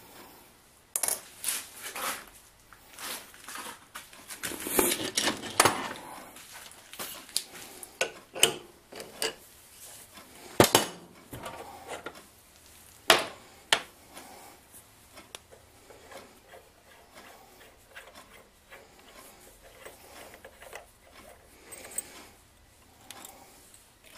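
Irregular metal clinks and knocks from small steel parts and a collet nut being handled and set down at a metal lathe's chuck while the lathe is stopped. The two loudest knocks come about 11 and 13 seconds in.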